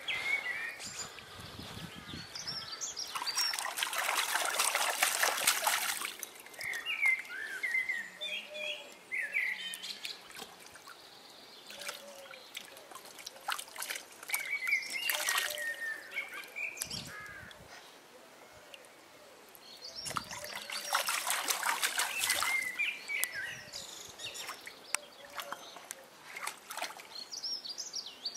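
Water splashing in a small inflatable paddling pool as a toddler wades and scoops in it, in three spells, the longest a few seconds in. Birds chirp in the quieter gaps between.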